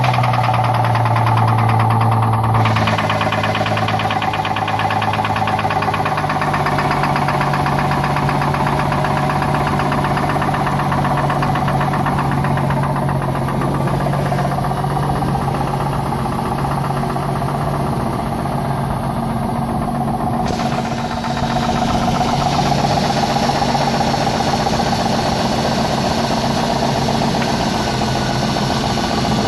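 2001 Ford Mustang's 3.8-litre V6 idling with a steady, rhythmic knock, a knock that developed after the engine had run very low on oil.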